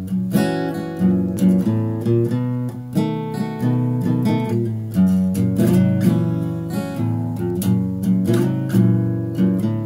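Acoustic guitar playing a blues instrumental intro, strummed and picked chords with a steady beat.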